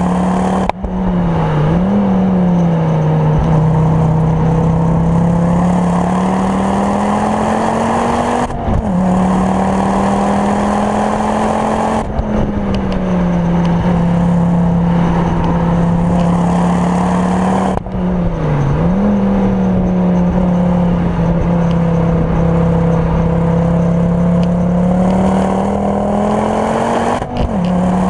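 Ford Focus RS Mk2's turbocharged 2.5-litre five-cylinder engine, in Mountune 420 bhp tune with a full Milltek exhaust, heard from inside the cabin while the car is driven hard on track. The engine note climbs slowly under load, then drops or dips sharply about five times as the driver changes gear or lifts off.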